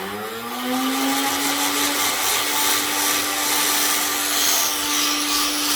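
Battery-powered electric motor of a Nerf gun spinning up, its whine rising in pitch over the first two seconds, then running steadily with a whirring hiss. It runs without firing a dart, a misfire: the darts get stuck at a bend in the gravity feed.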